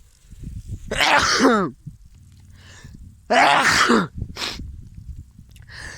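A person sneezing twice, about two and a half seconds apart; each sneeze is a loud burst whose voice drops in pitch at the end.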